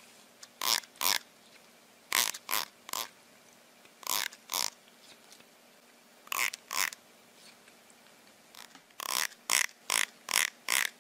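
The teeth of a plastic comb strummed with a fingertip or nail, giving short raspy zips in runs of two to six strokes with pauses between, about fifteen in all.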